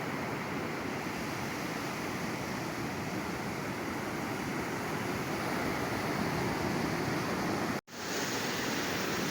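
Sea waves breaking and washing on the shore, a steady surf. Near the end it cuts out for a split second and comes back, an edit join in the recording.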